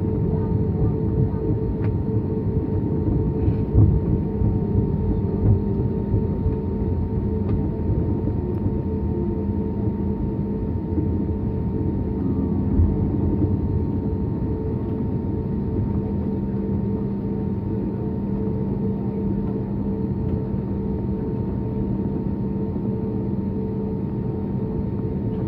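Airbus A320's jet engines running at low power, heard from inside the cabin as the airliner taxis slowly: a steady hum with a few louder bumps in the first dozen seconds.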